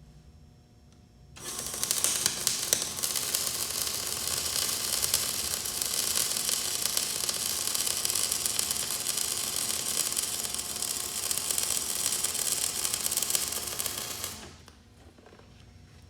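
MIG (gas metal arc) welder's arc crackling steadily as a bead is run, starting about a second and a half in and stopping shortly before the end.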